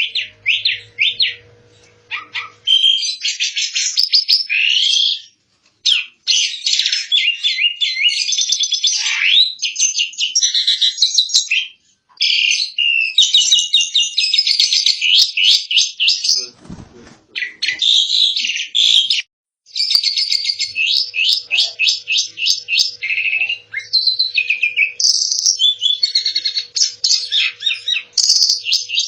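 Asian pied starling (jalak suren) singing in long bouts of rapid, high chattering notes, broken by a few short pauses.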